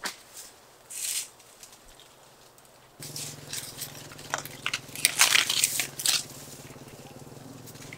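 Rustling and crackling of walnut-tree leaves and twigs as green walnuts are pulled off the branches by hand, in short bursts that come thicker after about three seconds.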